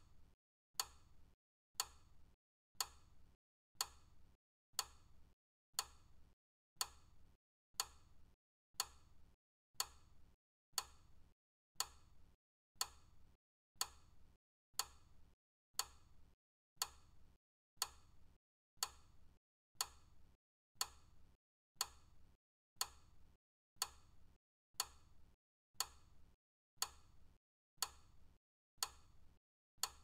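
Clock ticking steadily, one sharp tick each second, marking off the seconds of a timer.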